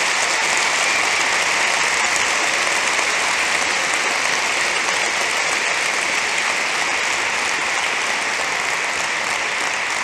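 Audience applauding: dense, steady clapping that eases off slightly near the end.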